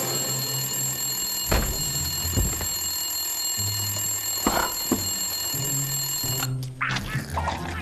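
Rotary desk telephone bell ringing continuously, stopping abruptly about six and a half seconds in. A few short knocks and low tones sound under it.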